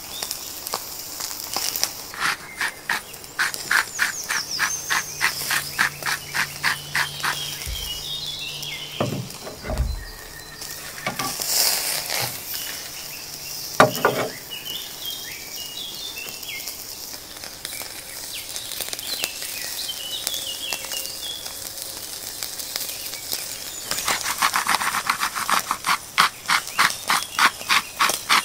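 Iberico bellota pork presa sizzling on a hot cast-iron grill grate, a steady hiss with crackles as the fat renders. Birds chirp in the background, and a rhythmic pulsing call of about three a second comes twice.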